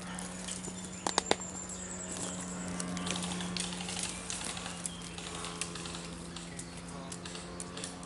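Crackling and rustling of footsteps through dry leaves and undergrowth, with three sharp cracks close together about a second in, over a steady low hum.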